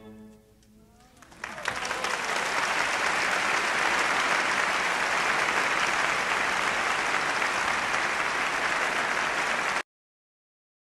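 The last chord of a string quartet and orchestra dies away, and after a short hush an audience breaks into applause about a second and a half in. The applause is steady and is cut off abruptly near the end.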